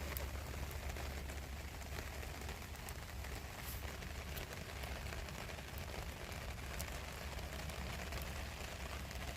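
Small wood fire crackling in a mini tin-plate fire stand: irregular sharp pops over a steady hiss, with a low steady rumble underneath.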